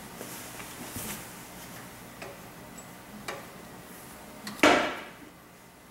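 Diesel engine of an MEP-004A military generator being turned over by hand with a breaker bar on the crankshaft pulley: a few light ticks and clicks, then one short, loud metallic clank about three-quarters of the way through. The engine turns over easily, with nothing seized.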